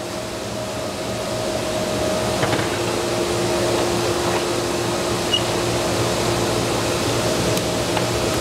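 Steady hum of shop machinery running, with two held tones over a rush of air that grows a little louder over the first couple of seconds. A few light knocks come as a featherboard and a board are set against the table saw fence.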